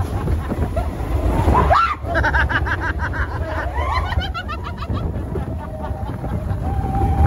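Riders laughing and giggling in quick bursts over the steady low rumble of a mine-train roller coaster running through the dark.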